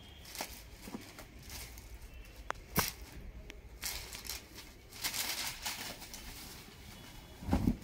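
Rustling and swishing of a saree's fabric as it is unfolded and spread out by hand, in irregular sweeps, with a couple of sharp clicks a little under three seconds in.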